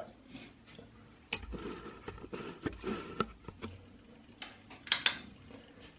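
Light clicks and taps of plastic parts being handled, scattered irregularly with a small cluster near the end: the opened shell and insides of an Amiga tank mouse being moved about.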